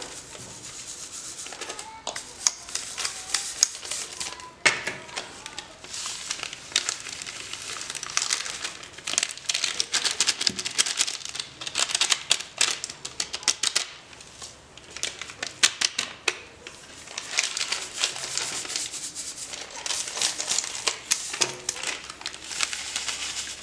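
Stainless-steel sieve being shaken and tapped to sift papad masala, its rim rattling in quick irregular clusters of clicks. A plastic masala packet crinkles as it is emptied into the sieve.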